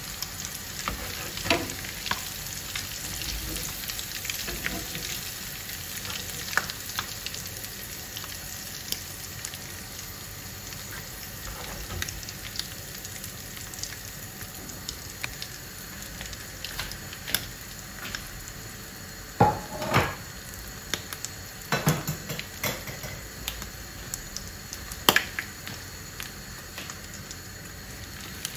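Almond-flour-coated squid and other seafood frying in hot oil: a steady sizzle full of small crackles and pops. A few louder knocks and scrapes come about two-thirds of the way through.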